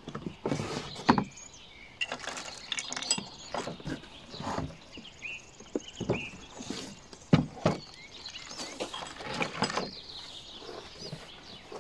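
Unpacking noise: cardboard box and plastic wrapping rustling and scraping, with irregular knocks and clatters as a lawn mower's folded handle and cable are lifted out of the box. The sharpest knocks come about a second in and again a little past the middle.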